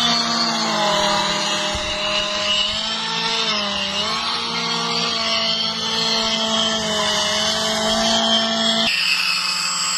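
A hovercraft's fan motor running with a steady whine. Its pitch dips briefly about four seconds in, and the lower part of the sound cuts out near the end.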